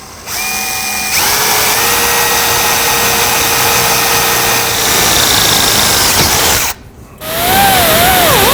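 Electric drill boring the end holes of an oblong slot in a small metal bracket. It runs with a steady whine for about six seconds, stops briefly, then runs again with its pitch wavering up and down as the bit bites under load.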